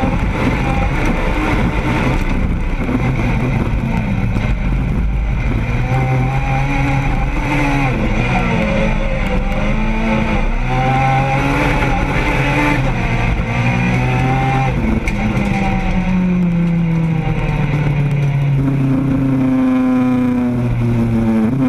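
Renault Clio 2 Super1600 rallycross car heard from inside its cabin: the 1.6-litre four-cylinder engine running hard, its revs climbing and dropping again and again through the gear changes. The sound cuts off suddenly at the end.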